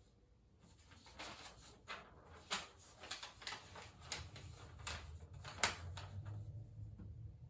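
Sheets of paper being picked up and handled, a string of crisp rustles and crackles with one sharper snap about five and a half seconds in.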